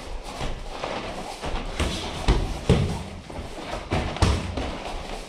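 Boxing sparring: a series of thuds from gloved punches and bare feet stamping on the ring mat, the heaviest about two and four seconds in.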